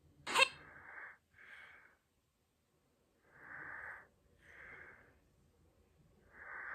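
A person breathing close to the microphone: a breath about every second, with a pause of about a second partway through. A short sharp sound about half a second in is the loudest thing.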